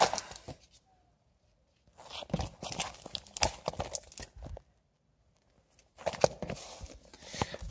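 Comic books being handled and laid out, their paper and covers rustling and crinkling in two short bursts, about two seconds in and again about six seconds in.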